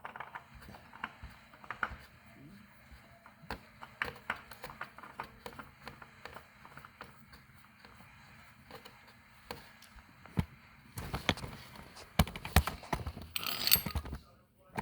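Scattered small clicks and knocks of hands threading a new oil filter onto a Kawasaki ZX10R engine, growing into denser, louder clattering near the end with a brief scrape.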